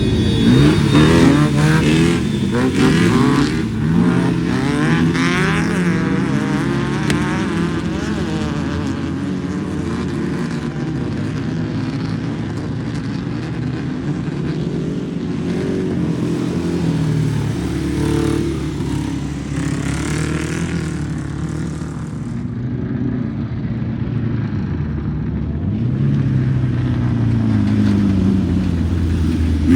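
Off-road race vehicles driving past under power, engines revving, their pitch sweeping up and down as each one goes by. Several pass in the first few seconds, another around the middle, and one more near the end.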